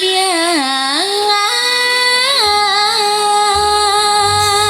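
A female singer (sinden) sings an ornamented, melismatic line with the band. Her voice dips and bends, then settles into a long held note about halfway through. Low bass notes come in underneath.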